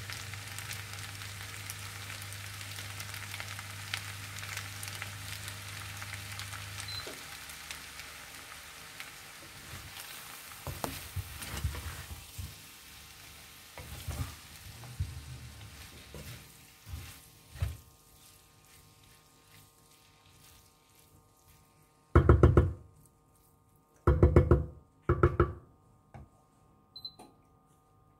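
Stir-fried noodles and vegetables sizzling in a pan, the sizzle fading, with a low hum that stops about seven seconds in. Midway a wooden spatula stirs and scrapes through the noodles, and near the end come three loud thumps.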